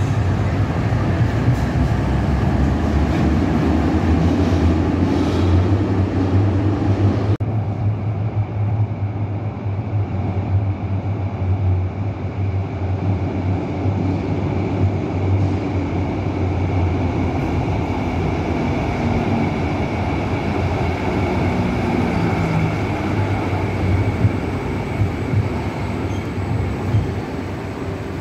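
Electric trams running through an underground tram station: steady rumble and hum of wheels and motors on the rails, echoing off the tunnel walls. After a sudden change about seven seconds in, the running noise continues with a thin, steady high whine.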